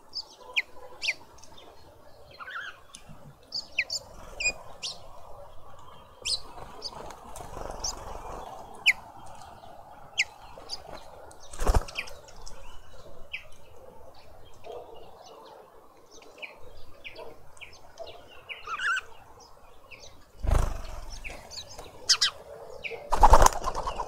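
Small birds chirping in short, high notes at a garden seed feeder, with bursts of wing flapping as birds fly in and out; the loudest flaps come about twelve seconds in and twice near the end.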